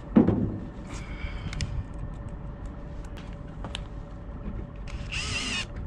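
A thump just after the start and a few light clicks and knocks, then near the end a cordless drill/driver runs for about half a second with a wavering whine, driving a stainless screw to fix the epoxied plywood hatch base to the deck.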